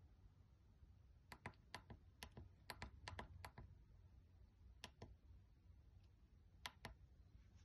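Small tactile push buttons on a breadboard clicking faintly as Morse code is keyed in, the letters A and R. Clicks come mostly in quick pairs of press and release: a quick run from about one to three and a half seconds in, then a pair near five seconds and another near seven.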